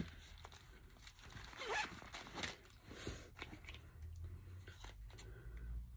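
Faint rustling and light scratchy handling noises as a small fabric gift pouch and its paper packaging are handled and opened.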